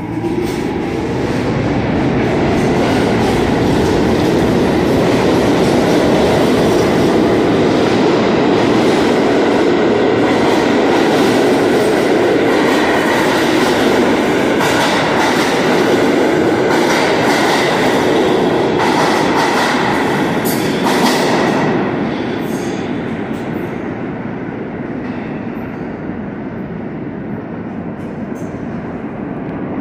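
New York City subway train pulling out of an underground station: the running noise of the cars on the rails builds and holds loud as they pass, with a high wheel squeal and clicks through the middle. About 22 seconds in it drops away as the train recedes into the tunnel.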